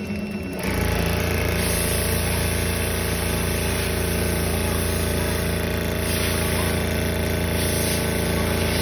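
Richpeace CNC automatic sewing machine stitching a quilted furniture panel: a fast, steady mechanical needle hum that starts under a second in and holds an even speed.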